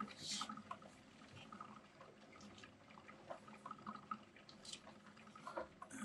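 Quiet interior of a vehicle on a bumpy dirt road: a faint low hum with scattered light clicks and ticks from the cabin.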